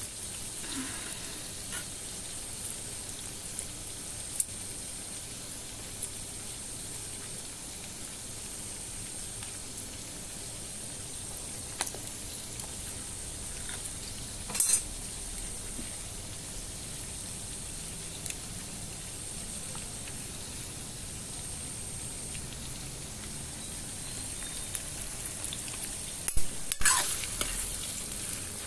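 Sliced onions sizzling steadily as they fry in hot oil in a wok. A few sharp clinks of the ladle against the pan come through, the loudest cluster near the end.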